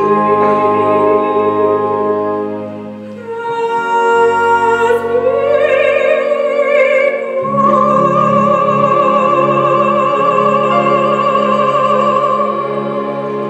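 Female solo voice singing a musical-theatre ballad over accompaniment, with long held notes and vibrato. About halfway through she climbs to a high note and holds it for about five seconds as the song's climax, easing off near the end.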